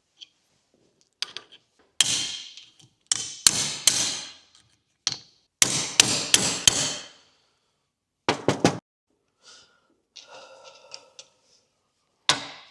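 A hammer striking metal on a universal joint of a Willys jeep driveshaft: about a dozen sharp, ringing blows in irregular groups, to free the tight U-joint retaining clips. A brief metallic scraping rattle comes near the end.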